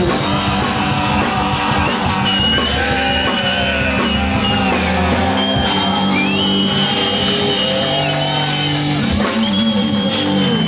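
Live punk rock band playing full out: distorted electric guitars, bass and drum kit, with long held high notes over the rhythm.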